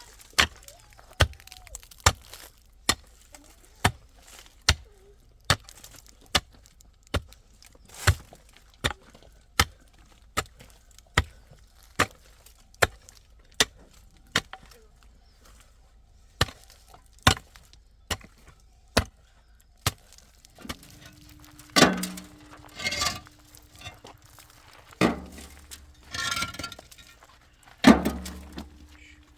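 Steady chopping blows, a little more than one a second, with a short pause midway. Near the end come a few louder crashing, breaking sounds.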